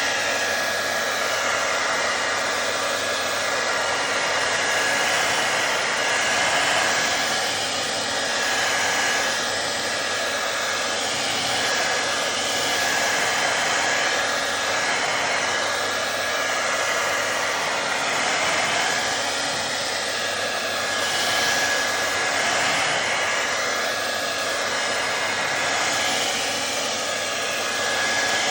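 Handheld hair dryer blowing steadily, a rush of air with a thin steady whine on top, rising and falling slightly in loudness. It is warming an iPad's battery to bring it out of protection mode.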